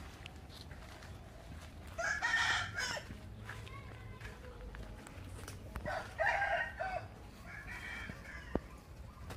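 Roosters crowing: two loud crows, each about a second long, one about two seconds in and one past the middle, then a fainter crow near the end.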